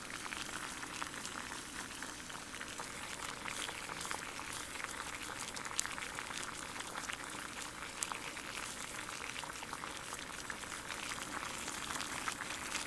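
Water at a full boil in a titanium cup: steady bubbling with many small pops and crackles, a couple of them a little louder.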